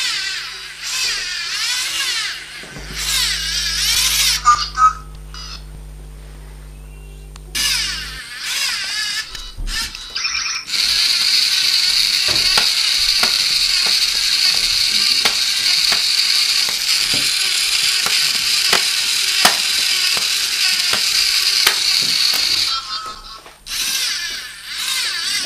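Sound clips from the Russian version of the game Portal laid over the video: a high, processed turret-style voice, then a steady electronic hum, then a long stretch of high electronic noise with regular clicks, with music underneath.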